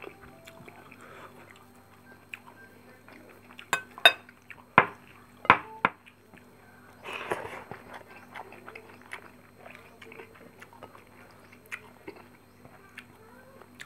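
A metal spoon clinking sharply against a ceramic plate about five times over two seconds, a few seconds in, amid quieter chewing and hand-eating sounds of rice and fried fish.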